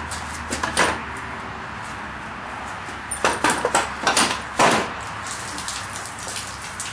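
Knocks and clanks of a heavy iron blacksmith's vise being set down and shifted on a wooden sawhorse. There are a couple of knocks about a second in, then a quick run of about half a dozen between three and five seconds in, the last one the loudest.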